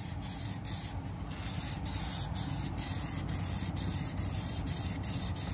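Aerosol spray can hissing as it sprays a protective coating, in steady spurts broken by several short pauses, the longest about a second in.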